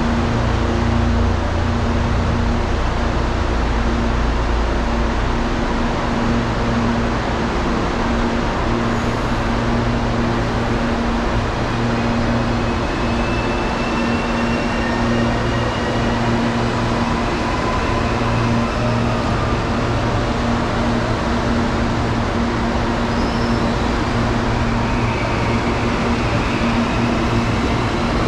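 Electric commuter train at a railway station platform, giving a steady hum with a constant low tone over a rumble, with a few faint high whines gliding in pitch partway through.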